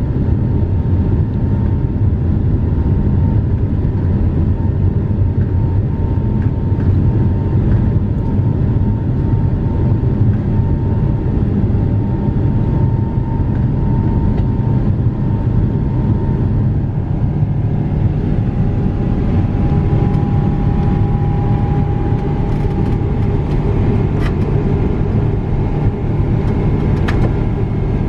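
Cabin noise of a Boeing 777-300ER climbing out after takeoff: a steady loud rumble of its GE90 engines and the airflow. A faint whine within it drops slightly in pitch about two-thirds of the way through.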